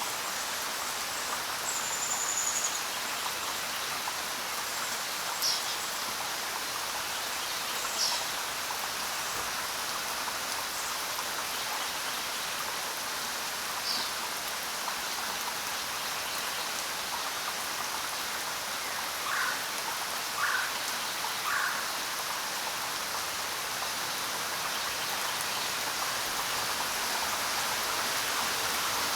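Steady rain falling on the ground, an even hiss of drops. A few short, high chirps are scattered through it, and past the middle come three lower calls in quick succession.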